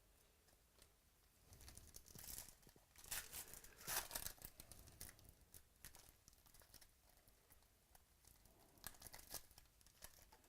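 A foil trading-card pack wrapper being torn open and crinkled, in a run of rustling tears from about two to five seconds in and a shorter burst near the end.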